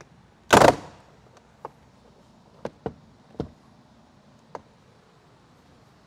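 Plastic retaining clips of a Toyota Tundra's interior door panel popping loose as the panel is pulled away from the door: one loud snap about half a second in, then several lighter clicks and knocks.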